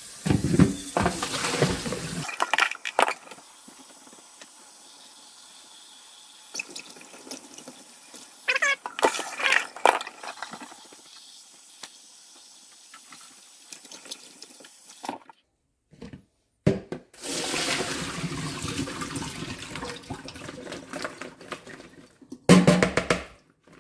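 Kitchen faucet running into a plastic bowl of cut potato sticks in a stainless steel sink, the water splashing as it fills the bowl to rinse the starch off. It is louder for the first two seconds and again for the last several seconds, with a few brief clatters of handling in the middle.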